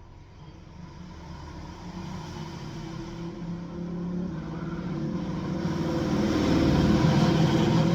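A motor vehicle's engine growing steadily louder as it draws near, loudest near the end.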